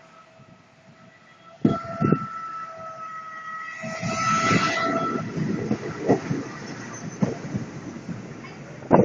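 WDG3A diesel locomotive hauling a passenger train passes close by, its horn held on one steady note until about five seconds in, with a couple of sharp knocks about two seconds in. The sound swells as the locomotive goes past, then the coaches' wheels click steadily over the rail joints.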